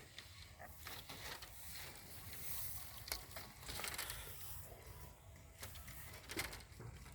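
Rustling with scattered sharp clicks and knocks, the loudest about three seconds in and again near the end.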